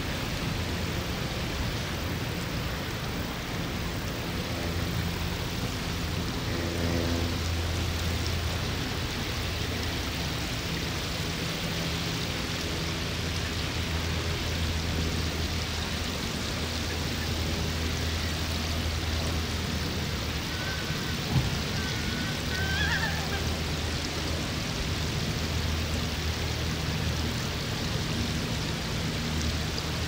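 Steady outdoor background noise: an even hiss with a low hum beneath it. About two-thirds of the way through come a faint click and a few faint chirps.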